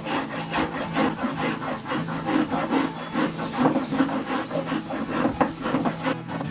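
Spokeshave cutting along a wooden cane shaft, a quick run of rasping strokes, several a second, as it shaves off curls to round the shaft.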